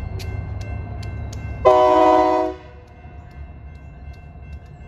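Diesel locomotive air horn sounding one short blast, under a second long, a chord of several notes at once. Underneath runs the low rumble of the moving locomotive, with regular clicks.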